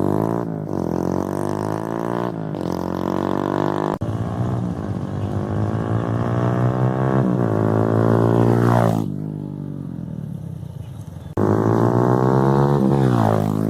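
TVS Apache RTR 160's single-cylinder engine through an unbranded aftermarket exhaust, accelerating past in a flyby: the note climbs in steps through the gears, then drops in pitch as the bike passes and fades. About eleven seconds in it comes back loud, rising and then falling again on a second pass.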